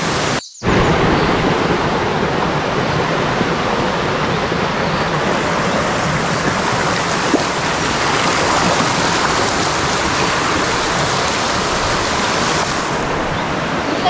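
Steady rushing of a jungle stream running full in the rainy season, with a brief cut to silence about half a second in.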